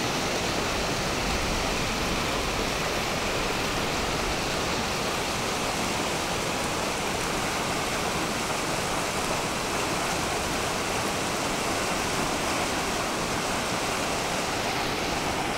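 Floodwater in a flash-flooded creek rushing steadily, a constant loud roar of turbulent water.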